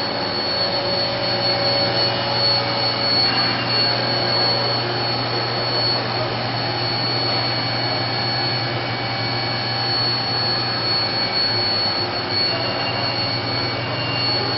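A 2000 Haas VF-5 40-taper vertical machining center running under power, a steady machine noise with a constant high whine over a low hum.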